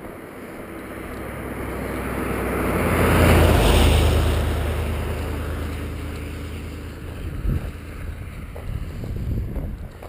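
A car passing at road speed on a wet road: tyre and engine noise builds, peaks about three and a half seconds in, then slowly fades away. A few low thumps near the end.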